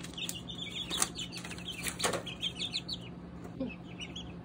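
Young chicks about three weeks old peeping: many short, high chirps overlapping, with a few sharp clicks about one and two seconds in and a steady low hum underneath.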